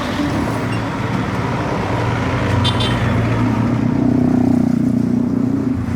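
Busy Indian street traffic: a steady din of motor vehicles, with one engine's hum growing louder as it passes close, loudest about four seconds in.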